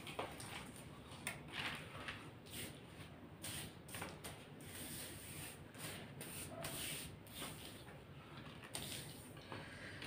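Rustling of fresh mint stems and leaves being handled and dropped into a plastic basket: a string of short, soft rustles and crackles.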